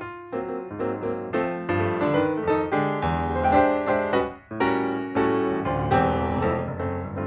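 Background piano music, a melody of struck notes that ring and fade.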